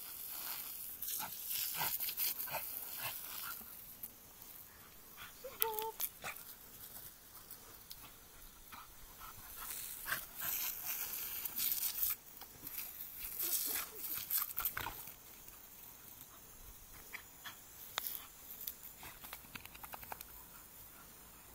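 A Staffordshire bull terrier lunging and snapping at the jet of water from a garden hose, with irregular bursts of splashing and breath noise.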